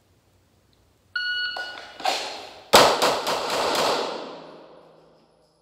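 Shot-timer beep about a second in, then pistol shots: one about a second after the beep, then a fast string of shots about a quarter second apart, with a long echo in the concrete range bay.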